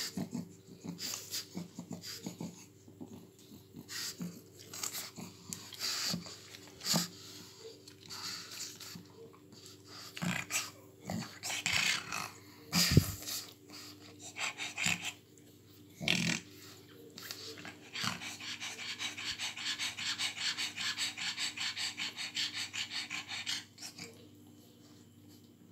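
Adult pug snuffling and snorting in short, irregular bursts, then panting rapidly and evenly for about five seconds near the end.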